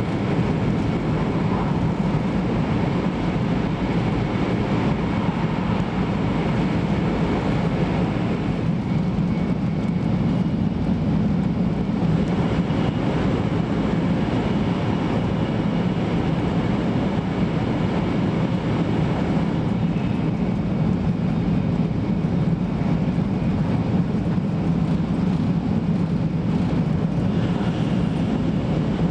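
Inside a 500 Series Shinkansen car while the train runs, a steady low rumble that holds even throughout.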